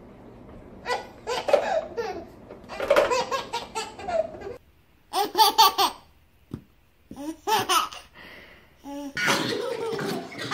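Babies laughing in repeated bursts of giggles and belly laughs, with short pauses between them.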